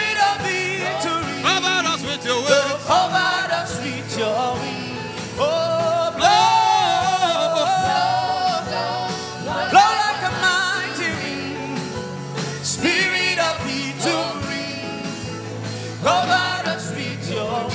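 Gospel worship song: voices singing a slow, drawn-out melody over instrumental backing, fading near the end.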